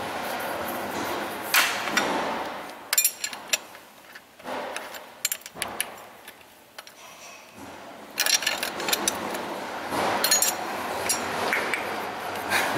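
Metal hand tools clinking and clicking on a Cummins ISX diesel's valve train: a wrench working a rocker-arm adjusting screw and locknut while intake valve lash is set with a feeler gauge. Scattered clicks early on, a quieter lull, then a dense run of clinks in the last few seconds.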